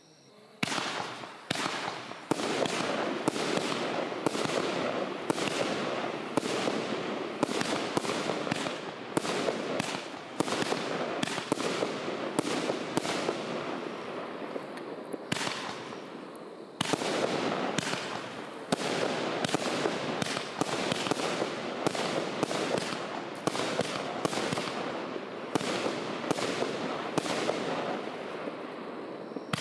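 A 96-shot firework battery (cake) firing shot after shot in quick succession: a dense string of launch thumps and bangs. It starts about half a second in and has one short lull just past halfway.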